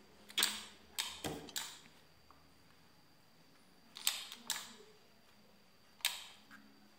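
Handling noise from a small amplifier circuit board and its wires being moved about on paper: short, sharp clicks and taps in three groups, a quick cluster near the start, another about four seconds in, and a single one about six seconds in.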